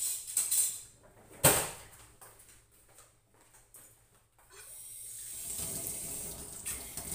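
A sharp knock and a few light taps and footsteps, then a kitchen tap starts running into a stainless-steel sink about four and a half seconds in and keeps running steadily.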